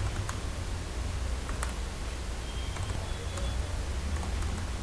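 Computer keyboard keystrokes, a few light, spaced-out clicks, over a steady low hum.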